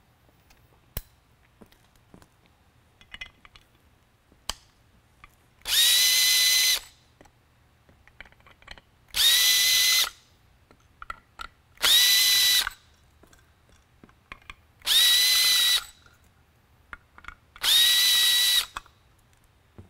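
Makita cordless drill-driver running in five short bursts of about a second each, a steady whine each time, backing out five small Torx screws one after another. Faint clicks from handling the driver and fixture fall between the bursts.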